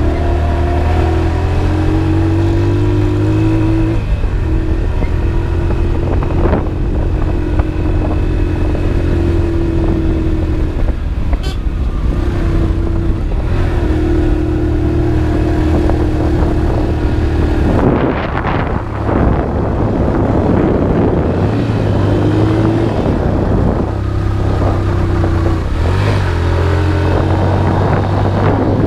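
Motorcycle engine running steadily during a ride, a steady hum that shifts slightly in pitch, over road and wind noise. About 18 seconds in, a louder rush of noise briefly covers the engine.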